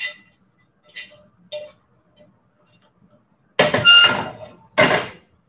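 Kitchen cookware and utensils clattering: a few light clinks, then two loud clanks of dishes or pans about a second apart near the end, the first ringing briefly.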